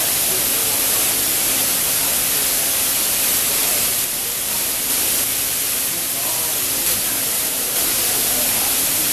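Water pouring in sheets off the station roof and splashing onto a flooded railway platform: a loud, steady hiss. The roof drainage is overflowing in the downpour.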